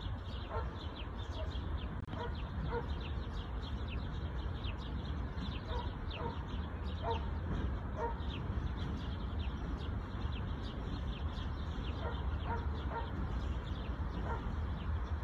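Birds chirping, with quick falling high notes two or three times a second and occasional lower calls, over a steady low rumble.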